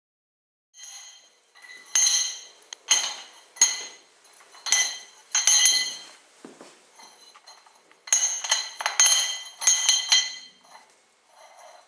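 Small metal dumbbell clattering and ringing against a tiled floor as a puppy mouths and pushes it: a run of sharp clinks, each with a bright ring, then a short pause and another cluster of clinks.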